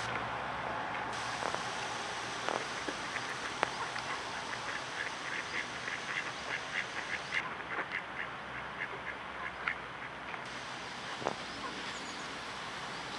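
Ducks quacking in a quick run of short calls, about three a second, that goes on for several seconds in the middle.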